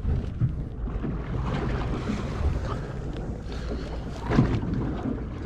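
Small fishing boat underway at trolling speed: a low steady motor rumble under wind buffeting the microphone and water washing along the hull, with a brief knock about four seconds in.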